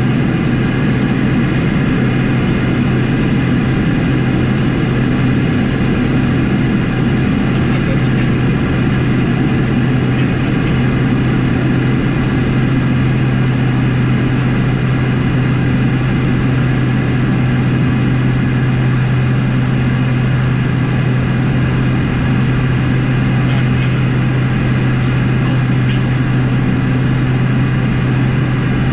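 Inside the cockpit of a Beechcraft King Air 250: the steady drone of its twin turboprop engines and propellers in flight, a constant low hum with airflow hiss over it. The power does not change audibly while it descends on approach.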